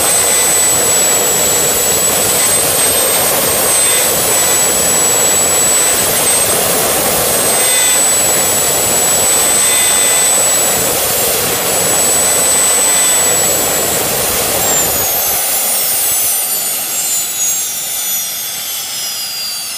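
Jet engine on a test stand running steadily with a loud, high-pitched whine over a rushing noise. About fifteen seconds in it begins spooling down: the whine falls steadily in pitch and the sound grows quieter.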